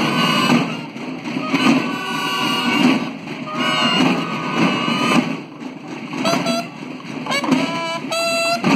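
A school bugle-and-drum corps (banda de guerra) playing: bugles sounding a series of held notes over steady drumming on marching drums.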